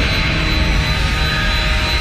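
Jet aircraft engine noise: a steady roar with a thin high whine running through it.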